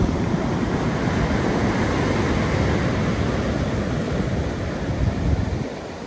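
Black Sea surf: waves breaking and foam washing up a dark sand beach, with wind buffeting the microphone. The rush eases off near the end.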